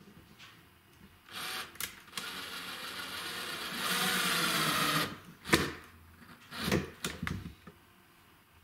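Electric drill running into wood: a short burst, then a longer run of about three seconds that gets louder near its end. A few sharp knocks follow.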